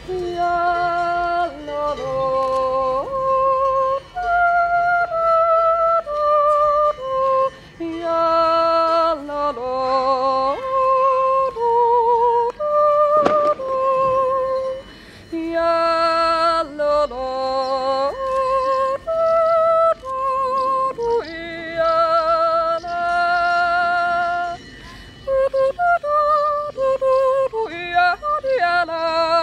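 A woman's solo Juitzer, a wordless Swiss yodel: long held notes with vibrato that leap back and forth between chest voice and head voice. The phrases are separated by short breathing pauses.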